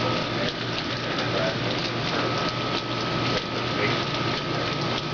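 Steady heavy rain during a thunderstorm, an even hiss dotted with the ticks of individual drops, over a faint steady high whine.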